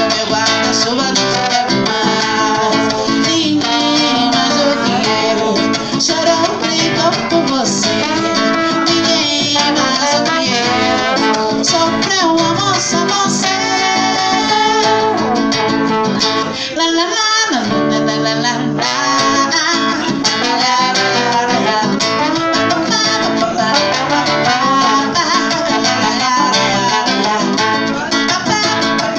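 Live acoustic guitar and trombone duo: the guitar strums the accompaniment while the trombone plays the melody, with a short break a little past the middle.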